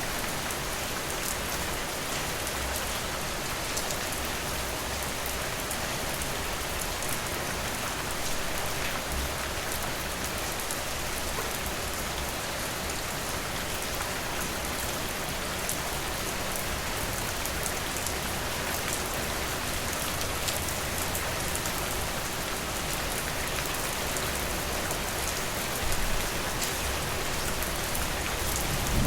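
Steady rain falling, an even hiss with fine pattering drops. A low rumble swells briefly near the end.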